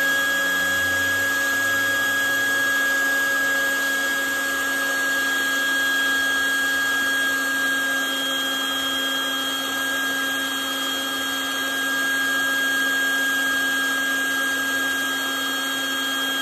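Shop vac running steadily through a Vinyl Vac wand resting on a spinning wet vinyl record, sucking the cleaning fluid and rinse water out of the grooves. A steady motor whine holds one pitch over a hiss of air.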